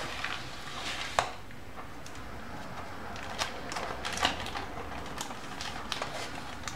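A knife blade scraping and clicking against the metal springform base as it is worked under a cheesecake, with a few sharp, separate clicks.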